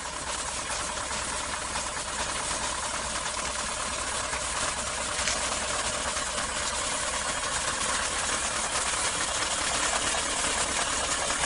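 Heavy diesel trucks running: a steady hiss over a low rumble, fading in at the start.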